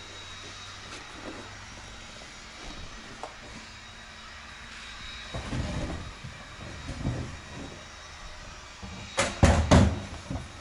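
Handling noises from someone rummaging in a camper trailer's rear storage compartment: scattered bumps and scuffs from about halfway in, then three sharp, loud knocks in quick succession near the end.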